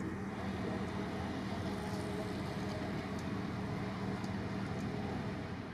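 Steady low engine hum with a constant drone and no rise or fall in pitch, typical of idling diesel engines, with a few faint ticks over it.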